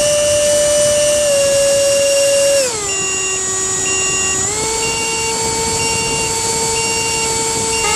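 Electric ducted fan (64 mm EDF with a 4200 kV motor) running with a steady high whine. Its pitch drops about two and a half seconds in, rises partway again around four and a half seconds in, and starts climbing near the end as the throttle is changed.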